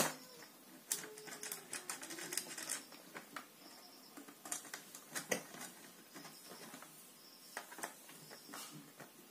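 Faint, irregular small clicks and scrapes of a screwdriver and stripped wire ends against the terminals of plastic electrical switches as a wire is fitted and its terminal screw tightened.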